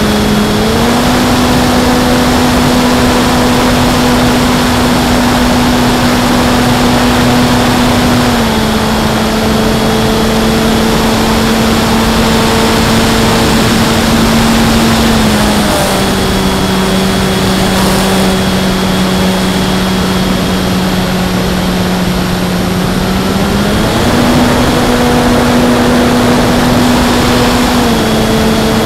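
Parkzone Sport Cub RC airplane's electric motor and propeller running steadily in flight, close up from the onboard camera over a hiss of rushing air. The pitch steps up about a second in, drops a little twice, and rises again near the end as the throttle changes.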